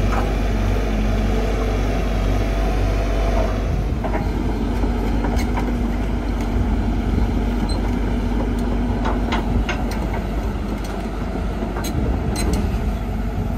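Steady low engine-like drone from an RC construction machine, with a held tone in it and scattered light clicks, more of them in the second half.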